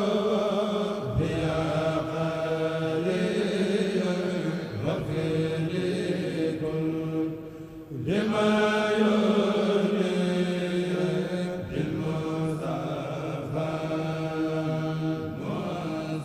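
A group of men chanting a Mouride qasida in unison, unaccompanied and amplified through microphones, in long held phrases of about three to four seconds each with brief breaks between them.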